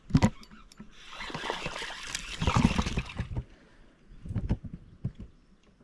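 Water splashing and sloshing in a shallow creek for about two seconds, after a sharp knock at the start, with scattered knocks and clicks afterwards.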